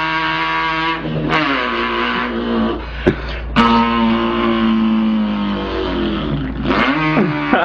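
A man imitating an import car's engine with his voice: a buzzing, engine-like hum held at one pitch, broken off briefly a few times and resuming lower, with a pitch glide down and back up near the end.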